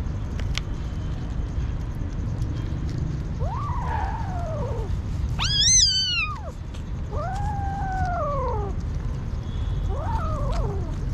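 Kitten meowing four times, each call rising and then falling, the second the highest and loudest, over a steady low background rumble.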